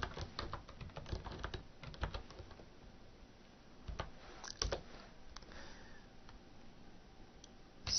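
Computer keyboard keystrokes, typing in irregular bursts. There is a quick run of key clicks in the first two seconds and a few more about four and a half seconds in.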